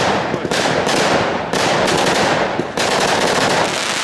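Professional fireworks display heard close to the firing site: a dense, unbroken run of shell bursts, several bangs a second, over continuous crackling from crackling-star effects.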